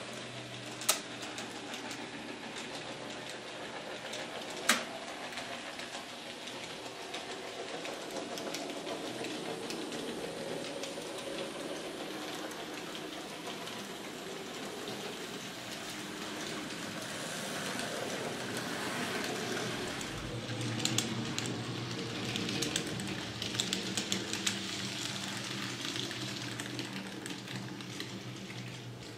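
Model trains running on a model railway layout: a steady hum of motors and wheels with clicking as they roll over rail joints and points. Two sharp clicks stand out about one and five seconds in, and quicker runs of clicks come in the second half.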